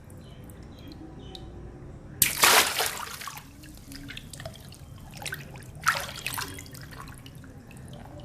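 Water balloons bursting twice, about two seconds in and again near six seconds. Each burst is a sharp pop followed by about a second of water splashing, with small drips and trickles between.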